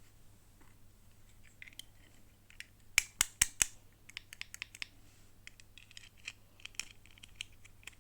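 Toy packaging being handled and opened by hand: a quick run of four sharp, loud clicks about three seconds in, then a scatter of lighter clicks and crackles.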